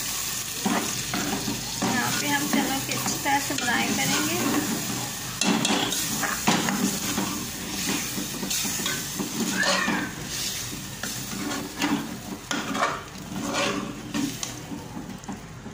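A long metal spoon stirring boiled white chickpeas into frying masala in an aluminium pot, with irregular scrapes and knocks against the pot over a steady sizzle.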